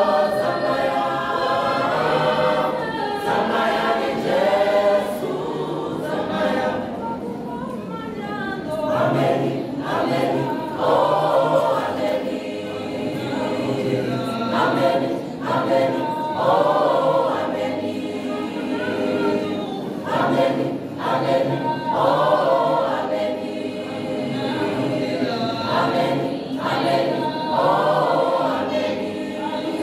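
Mixed choir of men's and women's voices singing a cappella in harmony, with no instruments.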